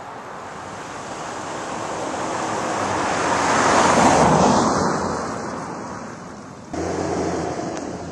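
A truck driving past on a road: its engine and tyre noise swells to a peak about four seconds in and then fades. Near the end it changes suddenly to a steadier, lower engine hum.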